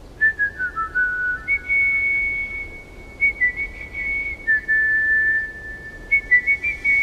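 A whistled tune: a few short notes stepping down in the first second or so, then long held high notes.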